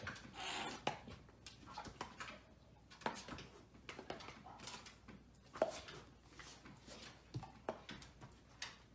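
A dog making soft sniffing and whimpering sounds close to a cat, with scattered light taps and knocks.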